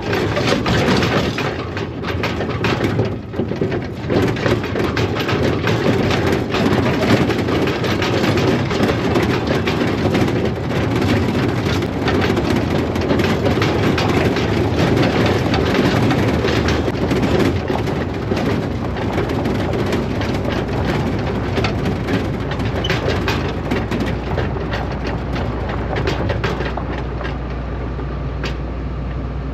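Combine harvester running: a steady heavy machine din with constant irregular rattling and crackling on top.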